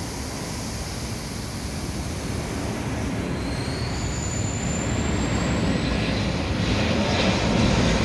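Sydney Metro Alstom Metropolis electric train pulling out, a faint high electric whine rising slightly in pitch about halfway through, over a steady rail rumble that grows louder toward the end.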